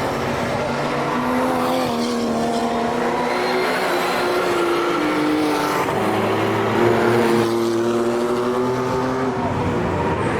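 Race car engines running at high revs, several at once, their pitch climbing slowly as they accelerate, with a deeper-sounding engine joining about six seconds in.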